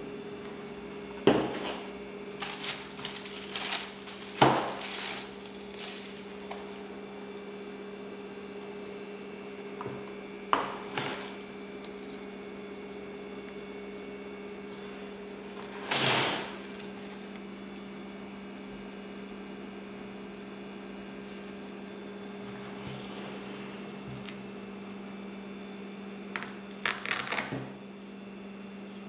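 Scattered handling noises from a pair of barefoot shoes, with short knocks, taps and rustles in a few clusters and one longer rustle about midway. A steady low electrical hum runs underneath throughout.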